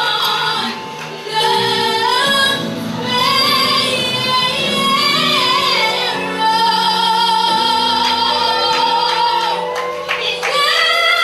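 A girl singing a gospel song solo into a microphone over musical accompaniment. About halfway through she holds one long note for some three seconds.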